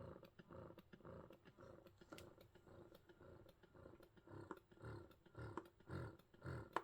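Medela Swing electric breast pump's small motor running faintly, pulsing in a steady rhythm of about two suction strokes a second, growing louder over the last few seconds.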